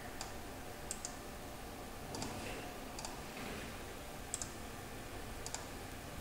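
Scattered sharp clicks of a computer mouse and keyboard, several in quick pairs, over a faint steady hiss.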